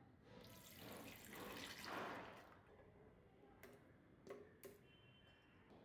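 Faint sound of milk being poured into a blender jar: a splashing pour that swells for about two seconds, followed by a few light knocks as dates go into the jar by hand.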